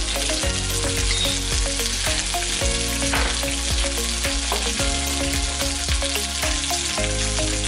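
Sliced bell peppers sizzling as they fry in oil in a steel pan, with a spatula stirring them and ticking against the pan now and then.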